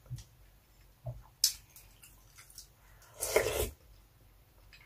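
Close-miked eating sounds: a sharp click about a second and a half in, then a half-second slurp as a spoonful of mung bean soup goes into the mouth about three seconds in.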